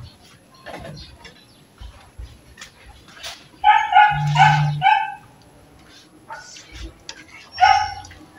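A dog barking, high-pitched: four quick barks about halfway through and one more near the end. Light clinks and knocks from a glass lid and a spatula on a wok sit underneath.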